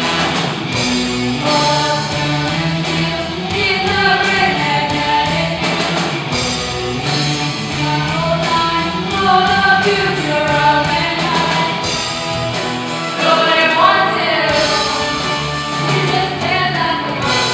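A live hard rock band playing: singers carrying a melody over electric guitars and a steady beat.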